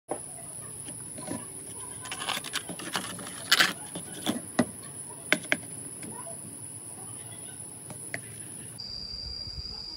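Thin plastic water bottles crinkling and clicking as they are handled and pulled apart, a run of sharp clicks in the middle, the loudest a few seconds in. Behind them is a steady high insect drone that shifts to a lower pitch near the end.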